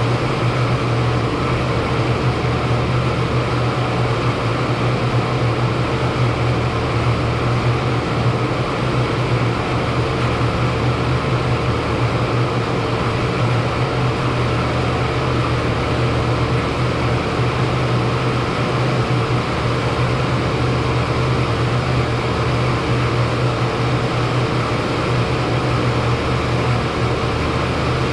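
40-ton Trane rooftop HVAC unit running steadily, a constant low hum with a faint steady higher tone over the rush of its fans.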